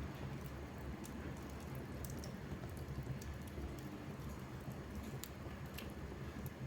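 Wood fire burning in a fireplace: a steady low rumble with scattered sharp crackles and pops, several close together near the end.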